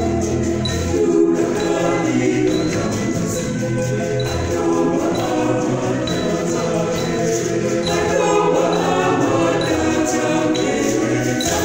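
A mixed choir singing a hymn in several parts, sustaining full chords, accompanied by plucked bow harps.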